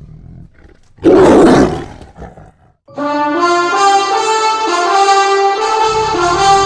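A big-cat roar, a tiger-roar sound effect, about a second in, short and fading away. About three seconds in, a slow brass fanfare of held notes starts.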